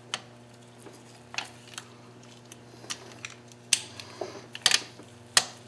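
Scattered sharp clicks and light taps of something being handled, the loudest two a little past the middle, over a steady low hum.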